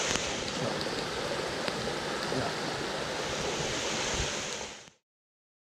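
Steady rushing noise of heavy rain with water running off, with a few light ticks of drops striking close to the microphone. It cuts off suddenly about five seconds in.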